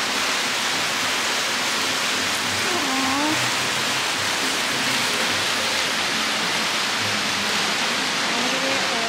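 A loud, steady rushing hiss that stays level throughout, with faint voices briefly in the background.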